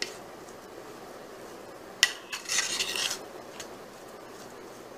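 Metal spoon stirring a thick wet mash of ground puppy kibble in a plate: a sharp clink against the plate about two seconds in, followed by about a second of scraping.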